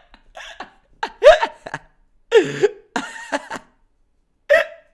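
A man laughing hard in several separate bursts, with short silences between them.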